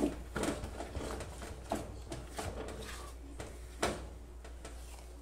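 Spatula stirring and folding a thick brigadeiro mass in a pot: faint, irregular soft knocks and scrapes of the spatula against the pot, with a slightly louder knock nearly four seconds in.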